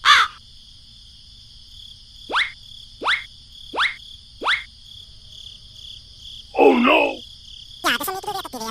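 Steady high-pitched drone of insects, crickets or cicadas. Over it come four short, quickly falling whistle-like sounds about 0.7 s apart, and near the end a louder short voice-like sound.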